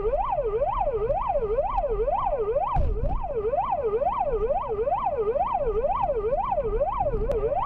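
Police car siren sounding a fast yelp: a pitched wail sweeping up and down a little over twice a second, without a break, over low engine and road rumble.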